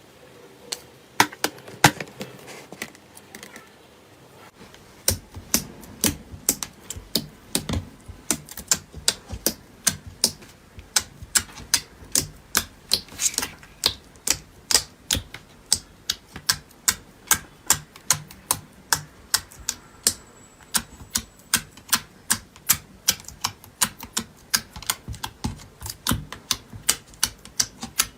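Slime worked by hand, making sharp clicking pops: a few loud ones about a second in, then a steady run of about two a second.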